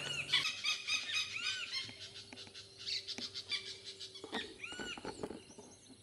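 Southern lapwings giving repeated sharp alarm calls, each rising and falling in pitch, several in a row, as parents defending a hidden chick.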